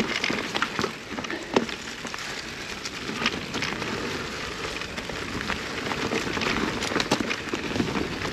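Electric mountain bike going over rough, stony trail: tyres crunching on loose rock and gravel, with scattered sharp clicks and rattles from the bike.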